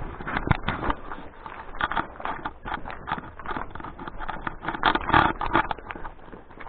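Footsteps crunching and scuffing over litter, dry leaves and weeds: an irregular run of crackles, loudest about five seconds in.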